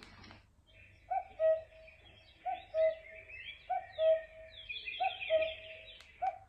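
Recorded birdsong from a nature-sound track played through a small 3-watt relaxation speaker. A low two-note call repeats five times, about once every second and a quarter, over higher chirping.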